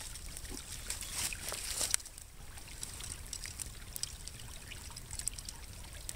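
Water trickling steadily, with scattered sharp crackles and pops from a small twig campfire.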